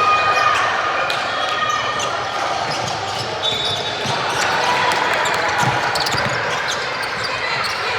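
Gym sound of a basketball game in play: the ball bouncing on the court amid the steady chatter of players and spectators.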